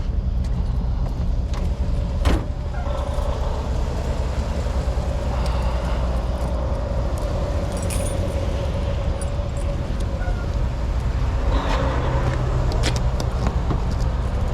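Truck engine running steadily at low speed while the truck is backed up a little, with a faint steady whine over it and one sharp knock about two seconds in.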